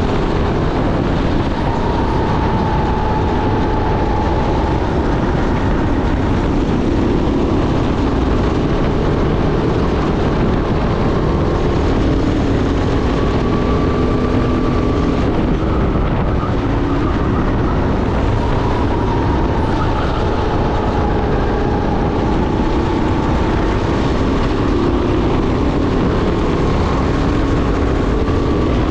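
Sodi SR5 rental kart's engine running at racing speed, its pitch rising and falling as the kart brakes and accelerates through corners, mixed with heavy wind and track noise on the onboard camera.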